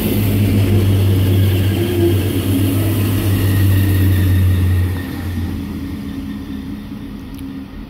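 Two coupled DB class 648 (Alstom LINT 41) diesel multiple units pulling away past the platform, their diesel engines running with a steady low drone. About five seconds in the drone drops and the sound fades as the train moves off.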